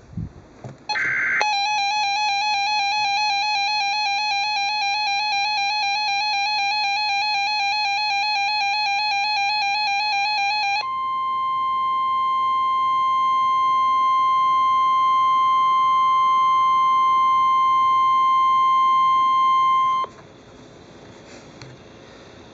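Emergency Alert System alert tones: a brief buzzy data burst, then a fast-pulsing electronic alert beep for about nine seconds, then a steady single alert tone near 1 kHz, the weather-radio warning alarm tone, for about nine seconds before it cuts off abruptly.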